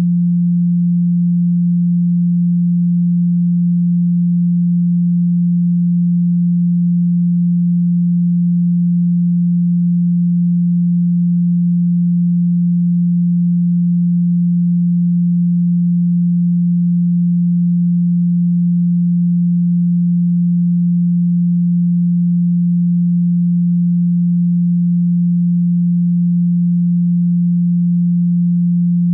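A steady, unbroken pure tone at 174 Hz: a Solfeggio healing-frequency tone, held at a constant level.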